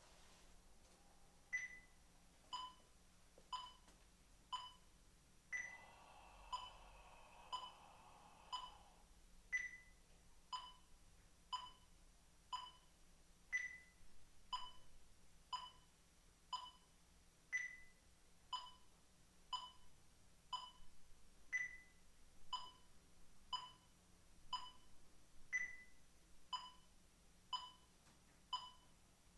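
Electronic metronome beeping at 60 BPM, one short beep a second with a higher-pitched accent on every fourth beat. Between about 6 and 9 s a long breath is drawn in over four beats, the inhale of a three-step breathing exercise.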